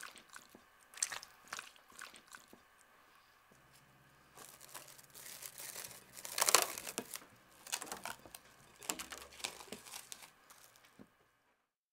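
Plastic cling wrap crinkling as it is pulled and stretched over a glass bowl, loudest about six and a half seconds in. Before it, a few faint soft sounds of marinated chicken being folded in the bowl.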